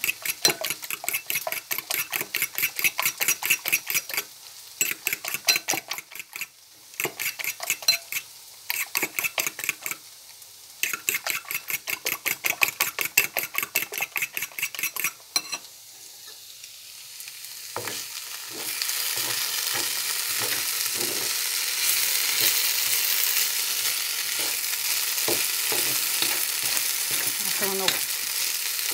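Raw eggs being beaten with a fork in a ceramic bowl: rapid clicking strokes in several bursts with short pauses. About two-thirds of the way in, this gives way to a steady sizzle of julienned potatoes and onion frying in oil in a black pan, with occasional scrapes of a metal spatula stirring them.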